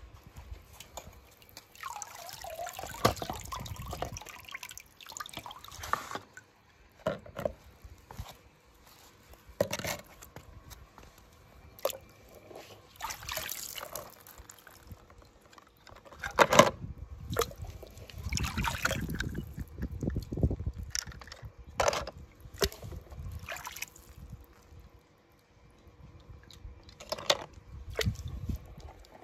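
Water sloshing, trickling and pouring as toy cars fall into and are moved through it, with sharp clicks and knocks scattered irregularly throughout.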